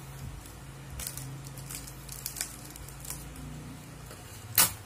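Eating and food handling: scattered light clicks and crinkles from foil-wrapped takeaway food, with one sharp, louder click about four and a half seconds in, over a low steady hum.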